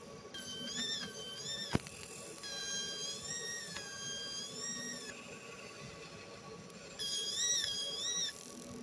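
30 W fiber laser cutting a silicon wafer: a high-pitched, wavering squeal whose pitch shifts up and down as the beam traces its path, sounding in three passes with short pauses between. A single sharp click comes just under two seconds in.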